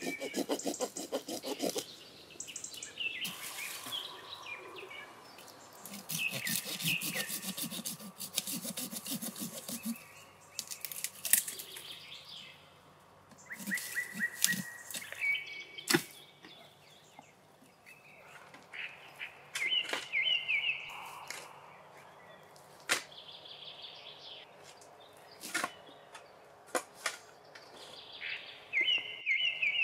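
Branches being cut with a small hand saw, a fast rasping stroke, broken by sharp snaps and knocks of wood, with birds chirping in short phrases between.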